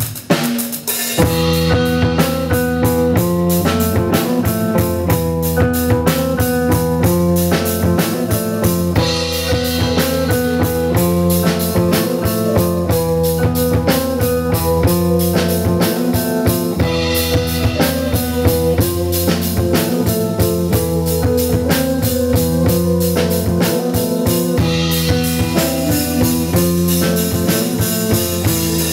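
Live instrumental progressive rock band playing: drum kit, electric bass, electric guitar and keyboards on a driving, repeating riff. The full band comes back in about a second in after a brief break, with cymbals swelling roughly every eight seconds.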